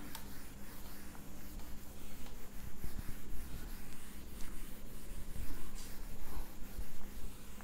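Handwriting: faint, irregular scratching strokes of a pen on a writing surface, over a faint steady low hum.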